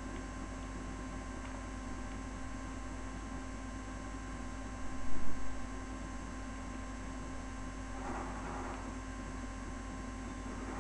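Steady electrical mains hum with a light hiss, picked up by a computer microphone. A couple of brief louder bumps come about halfway through.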